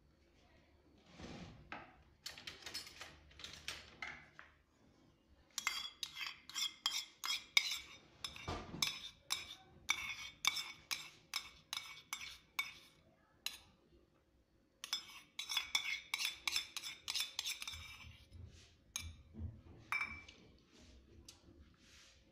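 Metal spoon clinking and scraping against a steel plate while mixing condensed milk into grated fresh coconut. Two runs of quick clinks, about three a second, with a short pause between them.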